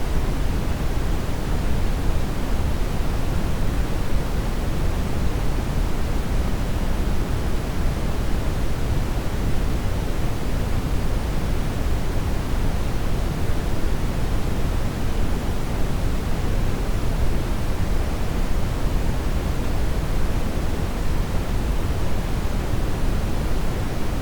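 Steady synthetic noise, an unbroken hiss with no events. Its energy is strongest in the bass and fades evenly toward the treble, closer to pink noise than to the purple noise named in the title.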